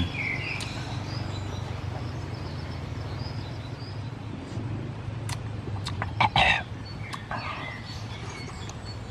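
Birds chirping over a steady low hum, with a few short, loud mouth sounds of a grilled mussel being eaten, the loudest about six seconds in.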